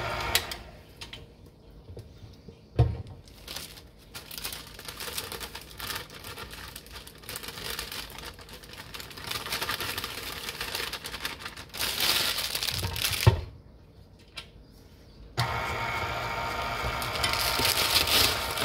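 Package rustling and light knocks as dry yellow cake mix is tipped into the bowl. About three-quarters of the way through, an electric mixer switches on suddenly and runs steadily, beating the cake batter.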